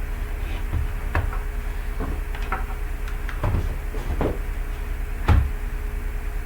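Irregular knocks and clicks of laptop parts being handled, about nine in all, the loudest about five seconds in, over a steady low hum.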